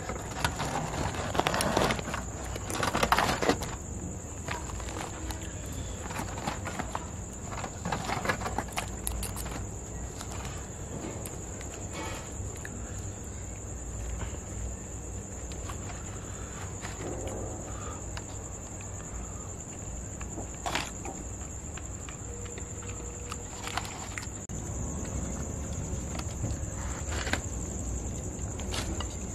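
Outdoor ambience: a steady high-pitched insect drone, with rustling and handling noise loudest in the first few seconds and scattered short knocks later.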